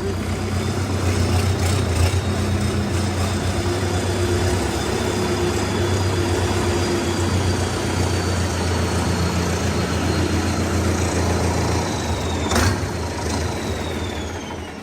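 Sonalika RX 60 tractor's diesel engine running steadily, with a faint high whine over it. A sharp click comes about twelve and a half seconds in, and the engine sound fades away near the end.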